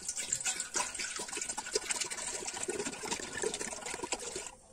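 Water poured from a plastic bottle into a metal pot, splashing steadily onto the bottom; the pour stops near the end.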